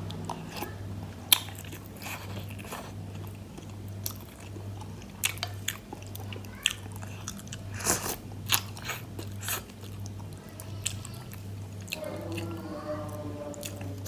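Close-up eating sounds from a bowl of bakso meatball soup with rice vermicelli: chewing and biting, with irregular sharp mouth clicks and smacks. A steady low hum runs underneath.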